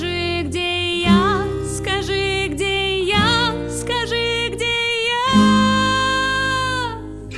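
Female voice singing a wordless, ornamented melody over acoustic guitar and bass. It ends on a long held note that fades out near the end.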